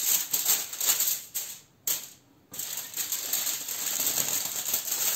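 Aluminium foil crinkling and rustling in uneven bursts as it is folded by hand into a parcel, with a short pause about two seconds in.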